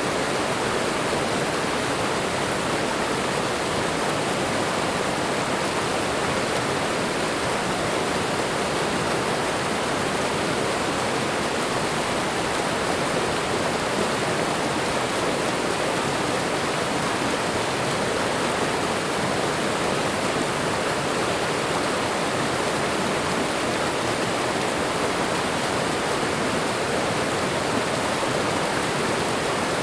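Waterfall: water pouring and splashing in a steady, even rush that does not change.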